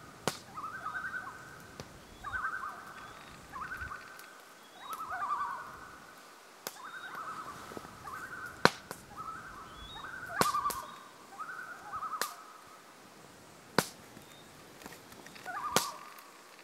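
Common loons giving their quavering tremolo call, the 'laughing' call, in short runs of about a second, one after another every second or so. A few sharp clicks come between the calls, the loudest a little past halfway.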